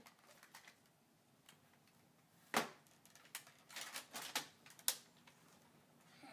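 Plastic clicks and clacks from a Nerf Rampage blaster's pump-action and trigger being worked: one sharp clack about two and a half seconds in, a quick run of smaller clicks, then another sharp clack near five seconds. No dart comes out; the blaster is not firing.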